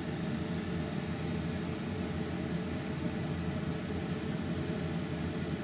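Large pot of crawfish boil liquid at a full boil on the stove: a steady, even noise with a low hum.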